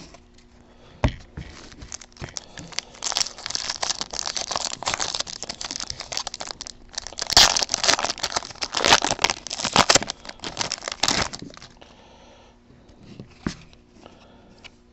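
Foil trading-card pack wrappers crinkling and tearing as they are ripped open by hand, with a short pause in the middle; the crinkling stops a few seconds before the end.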